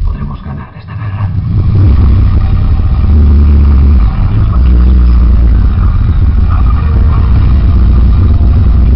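Very loud, overdriven low rumble from a sonidero sound system's speakers, heavy held bass notes that shift every second or two.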